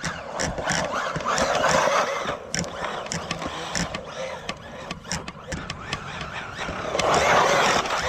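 An electric RC off-road car running on a dirt and gravel track: a rough, scrabbling noise that swells and fades, with many sharp ticks of stones.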